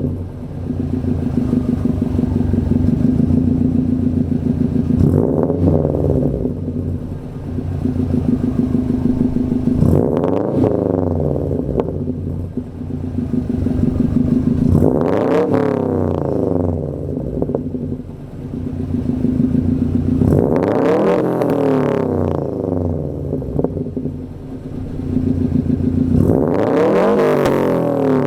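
A 2012 Subaru WRX's turbocharged flat-four idling through a muffler-delete cat-back exhaust, revved five times about five seconds apart. Each rev climbs in pitch and drops back to idle.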